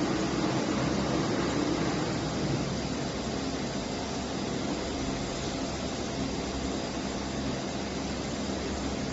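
Steady hiss with a low hum underneath, even throughout, with no distinct events.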